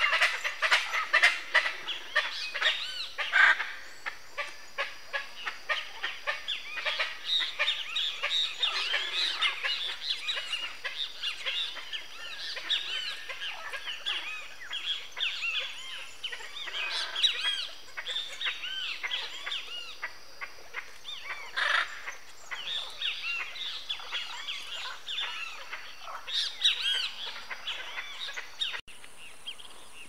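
A flock of hyacinth macaws and other birds calling in a dense chorus of harsh squawks and chirps, loudest in the first few seconds. Near the end the calling cuts off abruptly, leaving a faint steady high-pitched tone.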